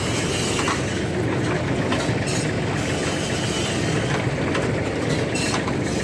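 Old Ford baler running with no hay, driven off a small John Deere 790 compact tractor: a steady mechanical clatter over the tractor engine, a little squeaky, with a few short clicks or squeaks.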